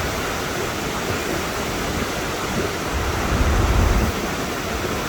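Iguazu Falls' water rushing, a steady dense roar of falling water. A low rumble swells about three seconds in.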